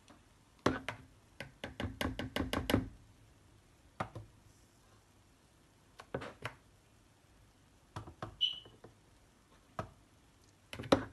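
Metal ladle clicking and knocking against a plastic mixing bowl and lolly mould as liquid mix is scooped and poured: a quick run of taps about a second in, then scattered single knocks, one with a short high clink.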